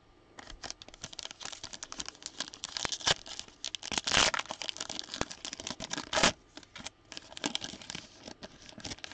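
Foil wrapper of a 2021 Donruss football trading card pack being torn open and crinkled by hand, a run of crackles with louder rips about four seconds in and again just after six seconds.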